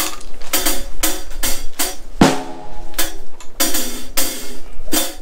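Pearl Roadshow acoustic drum kit being played with sticks: a beat of snare and bass drum hits with cymbal strikes. One drum hit about two seconds in rings on at a clear pitch.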